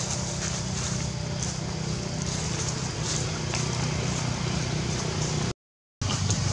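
Steady low outdoor background rumble with hiss and a few faint, short high-pitched ticks; the sound cuts out completely for about half a second near the end.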